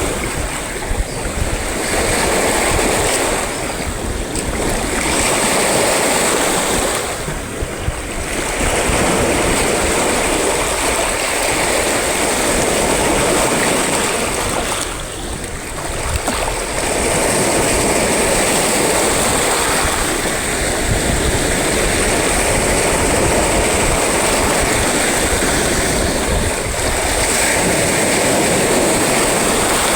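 Sea waves breaking and washing onto the shore in a continuous loud rush of surf, easing briefly every few seconds before building again.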